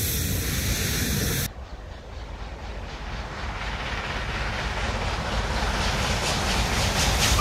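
SNCF 241P steam locomotive and its train approaching, a low running rumble growing steadily louder. Before it, a steady hiss cuts off suddenly about a second and a half in.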